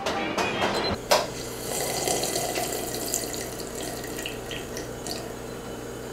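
A sharp knock about a second in, then water running steadily from a kitchen tap into the sink.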